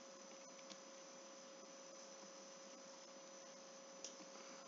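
Near silence: a faint steady hum over light hiss, with two faint clicks, one under a second in and one near the end.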